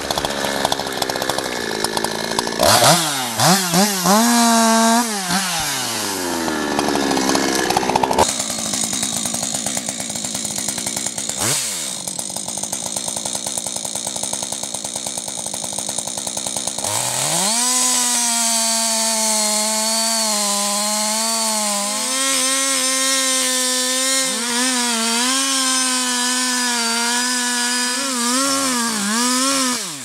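Two-stroke chainsaw running and cutting into a tree trunk, the engine revving up and dropping back again and again. The sound changes abruptly twice as one saw gives way to another.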